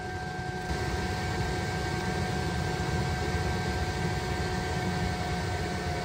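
Autoterm Air 4D diesel air heater running: a steady blower-fan whir with a constant whine over a low rumble.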